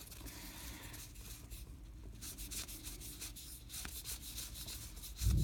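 Stack of cardboard baseball cards rubbing and sliding against each other as they are fanned and thumbed through by hand, a soft scratchy shuffle with small clicks. A louder low rumble comes in right at the end.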